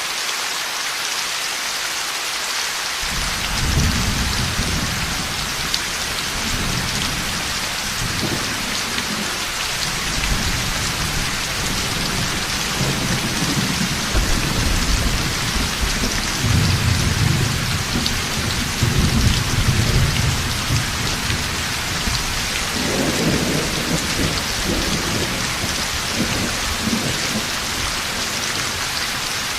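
Heavy steady rain with rolling thunder: low rumbling starts about three seconds in, swells in several long waves through the middle, and eases off near the end.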